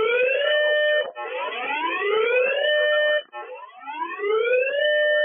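Electronic alarm sounding a repeating rising whoop: each sweep climbs in pitch, holds a steady note briefly, then cuts off and starts again about every two seconds.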